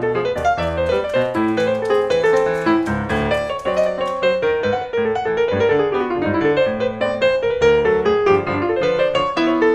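Grand piano played in a quick, dense flow of notes, with lower chords sounding beneath the melody.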